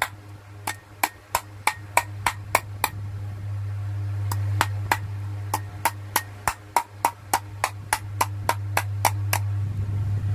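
Light hammer taps on the metal housing of a small exhaust-fan motor, about three a second, knocking around it to loosen the pressed-in stator coil so it comes free. The tapping pauses for about a second and a half around three seconds in, then resumes. A steady low hum runs underneath.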